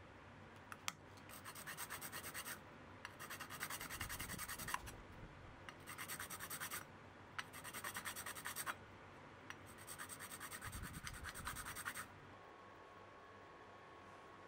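Flat steel file worked against fret wire clamped to a wood block, rasping in five bursts of quick strokes, the last and longest ending about two seconds before the end. This is the fret wire being dressed before it is hammered into the fingerboard.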